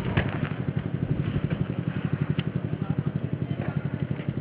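A machine running steadily with a fast, even pulse of about eight beats a second, with a few faint clicks over it.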